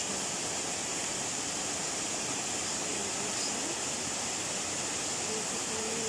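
Steady rushing of a small waterfall cascading in several streams over rock ledges.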